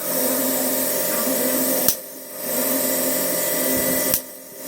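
Small high-speed power tool running with a steady whir while working metal. A sharp click and a brief drop in sound break it roughly every two seconds, near the start, about two seconds in, and near the end.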